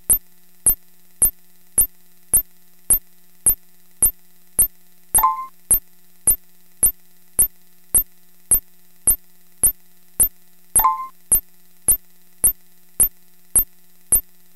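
Electronic sound effect: sharp clicks repeating evenly, just under two a second, over a steady low hum, with a short beep sounding about five seconds in and again near eleven seconds.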